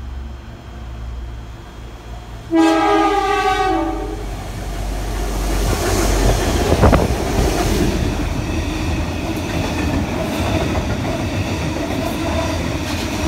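A pair of diesel locomotives on an Aurizon ballast train approaches with a low engine rumble and sounds its horn once, for about a second and a half. The locomotives then pass close by, engines and wheels loud on the rails, and the loaded ballast wagons follow, their wheels running past over the rail joints.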